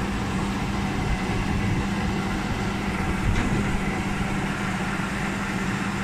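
Spindleless veneer peeling lathe running with a steady low hum from its electric motors and gear drive. There is a small click about halfway through.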